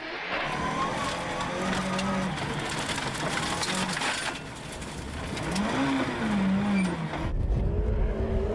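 Rally car engine at speed, its pitch holding, dropping and rising again as it revs up and down through the gears. About seven seconds in, the sound cuts abruptly to another loud engine with a heavy low rumble.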